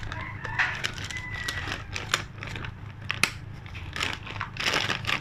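Plastic bag of wheat flour being opened and handled, its plastic crinkling and rustling in quick irregular crackles over a steady low hum.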